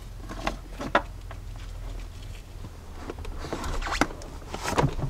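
Handling noises as a wiring harness and plastic HVAC box are worked into place: light rustling with scattered sharp clicks and knocks, the sharpest about a second in and at about four seconds, and a small cluster near the end.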